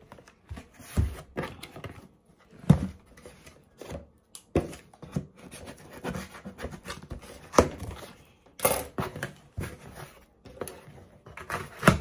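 Scissors cutting through packing tape on a cardboard shipping box, with scraping and irregular knocks of the cardboard as the box is handled and its flaps pulled open.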